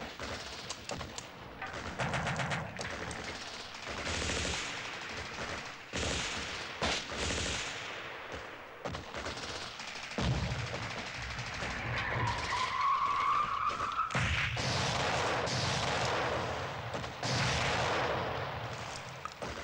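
Battle gunfire: bursts of machine-gun fire and scattered rifle shots. About twelve seconds in a rising whine is heard, and after it the firing becomes a steadier, louder din.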